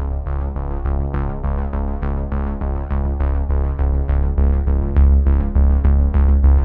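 Electronic intro music: synthesizer with a steady pulsing beat and heavy bass.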